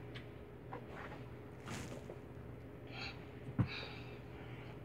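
A small child's soft breathing and sniffs over a steady low hum, with one sharp knock about three and a half seconds in.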